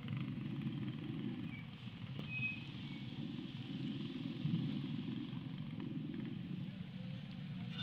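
A motor vehicle running: a steady low rumble that rises and falls slightly.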